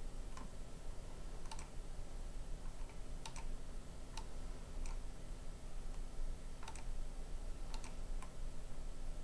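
Computer mouse clicking about ten times at irregular intervals, some clicks in quick pairs, over a steady low electrical hum.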